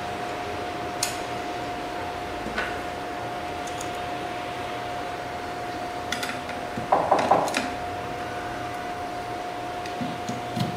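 Small metal parts and tools clicking and clinking now and then as an IPL power supply is put together by hand, with a quick run of clinks about seven seconds in. A steady whine sounds throughout.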